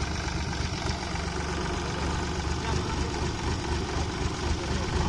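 Small tractor's diesel engine running steadily.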